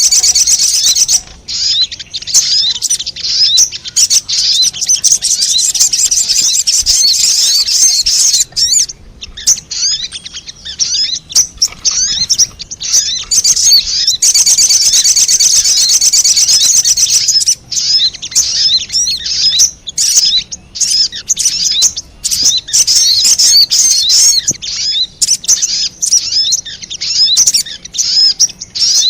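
Little spiderhunter (sogon) calling in a lure recording: loud, rapid, high-pitched chattering chirps, near-continuous with brief breaks.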